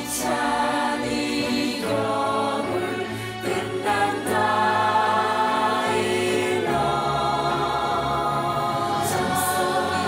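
Musical-theatre cast singing together in Korean over instrumental accompaniment, with long held notes.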